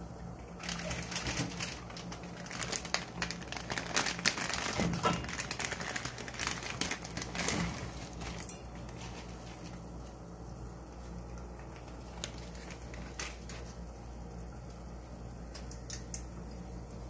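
Plastic instant-noodle packet crinkling and rustling as it is handled, over a steady low hum. The crinkling dies down about eight seconds in, leaving the hum with a few faint clicks.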